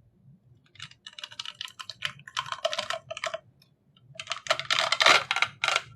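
Vacuum-formed soft plastic nightguard laminate being peeled and popped off the dental model, a crackling run of fast clicks in bursts. The crackling starts about a second in, pauses briefly midway, then comes back louder and denser.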